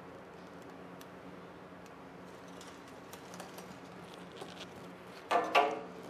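Faint clicks and rustling of flat ribbon cables being handled and plugged into a 4720 inkjet print head, over a steady low hum. Near the end comes one brief, louder pitched squeak-like sound.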